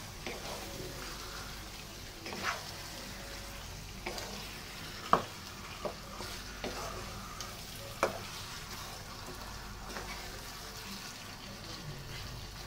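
Chicken pieces in a yogurt and spice masala being stirred with a wooden spatula in a hot frying pan: a steady low sizzle of frying, with a few sharp knocks of the spatula against the pan, the loudest about five seconds in.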